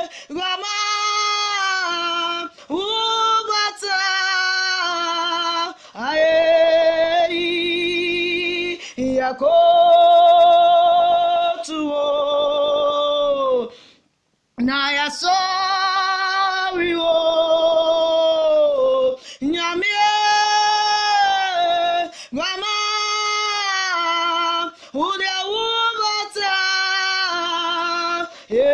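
A woman singing a worship song unaccompanied, in long held notes with a wavering vibrato, phrase after phrase with short breaks for breath. About halfway through, the sound cuts out completely for about half a second.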